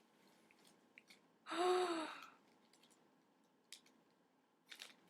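A woman's voiced sigh of delight, held for under a second about a second and a half in, its pitch dipping slightly. A couple of faint clicks follow later.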